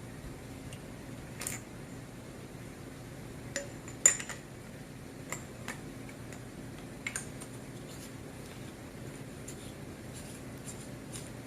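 Hard objects being handled: a diving light and its batteries give a few scattered small clicks and metallic clinks, the sharpest about four seconds in, over a low steady hum.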